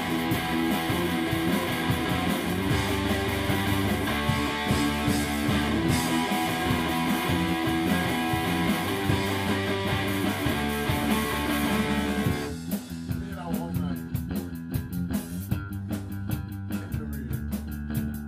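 Rock band playing live: electric guitar, bass guitar and drum kit together. About twelve seconds in the sound turns quieter and sparser, the dense guitar layer thinning out to a leaner groove of bass and drums.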